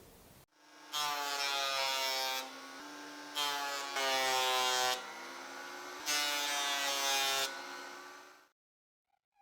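Small electric power tool motor running with a steady whine. Three times it gets louder and hissier, its pitch dipping slightly as it cuts into the work, then it stops near the end.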